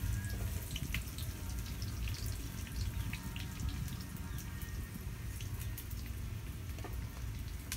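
Sliced small onions sizzling and crackling steadily in hot sesame oil in a clay pot, over a low rumble.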